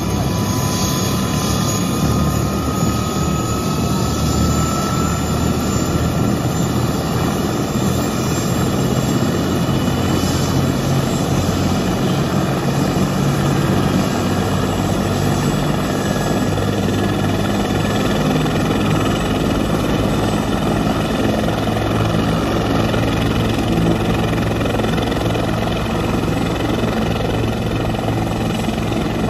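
Medevac helicopter's turbine engine and rotor running on the ground before lift-off: a steady, loud rush of rotor and engine noise, with a thin turbine whine rising slightly in pitch over the first few seconds.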